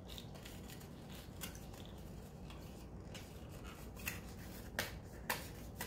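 Faint rustling and scraping from hands working small plastic candy molds, pressing in and popping out a no-bake donut, with a few light clicks in the last two seconds.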